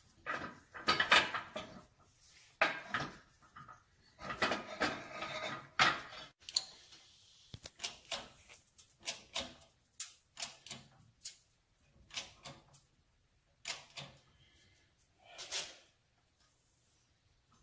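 A series of sharp metal clicks and clanks as the engine's crank assembly is worked in a press and handled. They come in quick clusters for the first few seconds, then singly about once a second.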